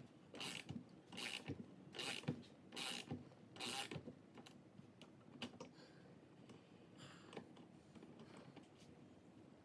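Hand tool worked against metal parts of a shock absorber during disassembly: a run of short, rasping strokes about two a second, giving way after about four seconds to faint handling noises.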